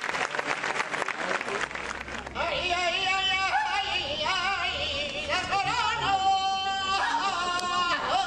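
A man singing a saeta solo, with long ornamented notes that waver and glide, starting about two seconds in. Before it comes a short stretch of crowd noise.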